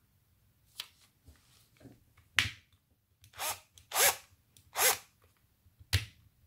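Hard plastic clicks and short sliding scrapes of a Bosch 18 V lithium-ion battery pack being slid off and handled against a cordless drill driver: sharp clicks about a second in, at two and a half seconds and near the end, with three longer scrapes between them. The drill's motor is not running.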